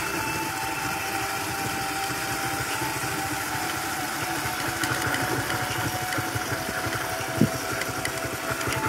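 Motorcycle engine running steadily while riding, with one brief thump near the end.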